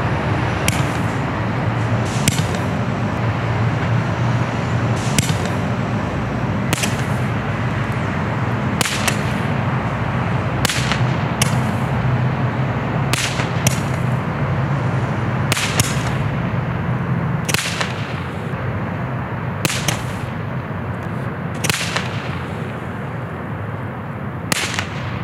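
Black Cat 10-ball assorted Roman candle firing: sharp cracks roughly every one and a half to two seconds over a steady low noise.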